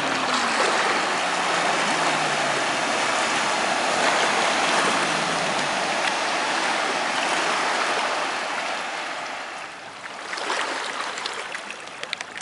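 Cobalt 24SD sterndrive boat running fast across the water: a steady rush of spray and wake off the hull, with a faint engine drone that falls in pitch over the first few seconds. The rush dips about ten seconds in, then comes back.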